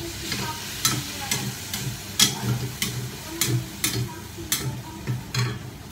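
Metal spatula scraping and knocking against a metal wok, about two strikes a second, as shredded chicken is stir-fried. The chicken sizzles steadily underneath.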